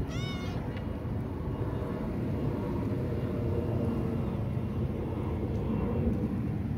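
A kitten meows once, a short high call that rises and falls, right at the start. After it only a steady low background rumble is heard.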